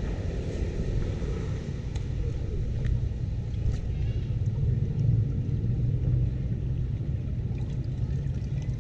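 Muddy rainwater draining into a just-unclogged culvert drain with a steady low rumble. A few faint clicks and splashes come from a hand pulling leaves out of the drain mouth.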